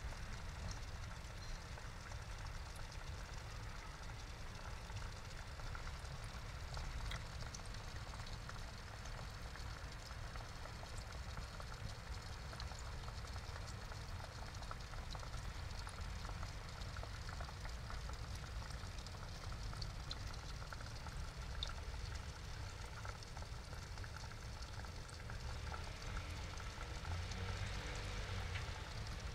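Water pouring from an inlet pipe into a small pond, a steady splashing trickle, over a low rumble that grows louder near the end.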